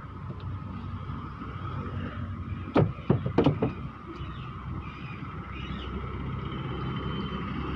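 Green tender coconuts knocking against each other as they are handled and tossed during unloading, with a quick cluster of about four sharp knocks about three seconds in, over a steady low rumble and hum.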